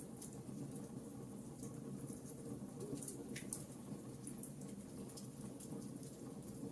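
Campfire crackling: frequent small, irregular pops and snaps over a steady low rush of burning wood, with one stronger pop about three and a half seconds in.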